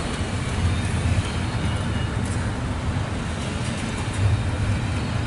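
Double-stack intermodal freight train's container well cars rolling past: a steady low rumble of steel wheels on rail, with a few faint clicks about two seconds in.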